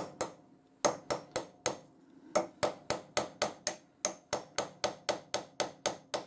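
A hammer tapping a steel pin set in the top cap of a lathe live centre held in a vise, driving the threaded cap round to loosen it. Light, ringing metal-on-metal taps come in two short bursts, then settle into a steady run of about four a second.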